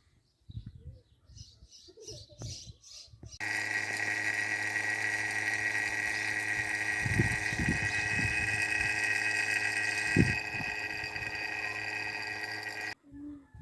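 A machine with an electric motor starts suddenly about three seconds in and runs steadily, with a low mains hum and a high whine over a hiss. It has a couple of knocks and cuts off abruptly near the end.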